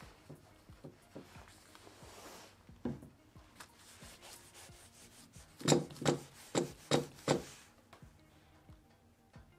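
Wide paintbrush scrubbing a wet model car body, bristles rubbing in soft strokes. About halfway through comes a quick run of five sharp knocks, the loudest sound here.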